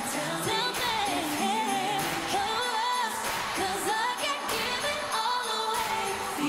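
Female lead vocal sung live into a handheld microphone over a pop song backing with a steady beat.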